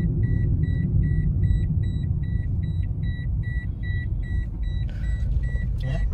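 A car's low running and road rumble heard inside the cabin while driving, with the dashboard warning beeper sounding short, evenly spaced high beeps, about three a second.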